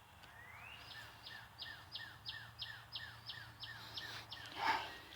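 A songbird singing: one rising whistle, then a quick run of about a dozen identical repeated notes at roughly three a second. Near the end there is a short, loud rustle or knock close by.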